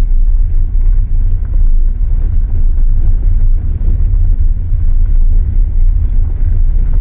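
Loud, gusty low rumble of wind buffeting the microphone.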